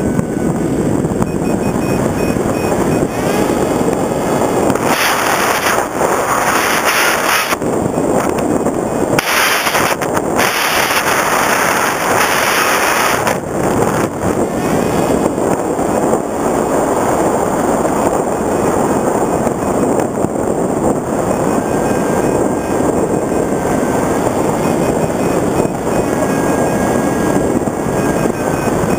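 Wind rushing over the onboard camera of an FPV Raptor RC plane in fast low flight, with the whine of its electric motor and propeller. The rush is harshest from about five to thirteen seconds in, with brief breaks, and a faint steady whine shows near the end.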